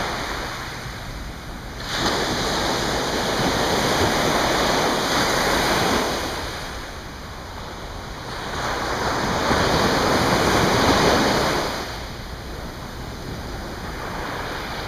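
Ocean surf washing onto a sandy beach, a steady hiss that swells about two seconds in, dies down a few seconds later, then swells again past the middle before easing off.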